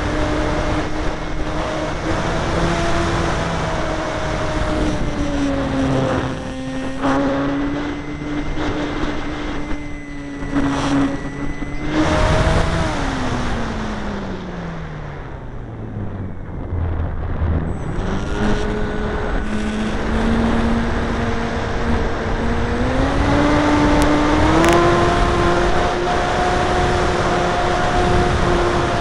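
Model airplane's motor and propeller heard through a camera mounted on the plane, running with a steady whine over rushing wind. About halfway through the motor is throttled back and its pitch slides down, then it is opened up again, rising in two steps to a higher steady pitch.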